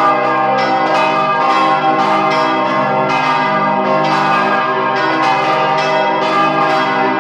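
Several large St. Vitus church bells swung by hand on ropes, ringing together loudly: overlapping strikes at an uneven rhythm, a few a second, over a continuous sustained hum of ringing tones.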